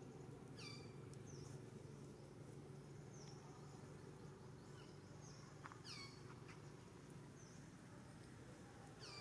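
Faint short, high-pitched animal calls, each sliding down in pitch, repeated several times a second or two apart over a steady low hum.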